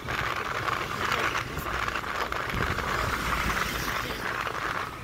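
Wind rushing over the microphone of a moving motorcycle, with a low rumble of engine and road noise underneath.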